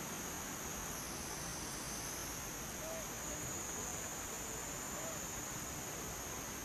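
Steady high-pitched drone of a forest insect chorus, cicadas or crickets, without a break over a background hiss, with two faint short chirps a couple of seconds apart.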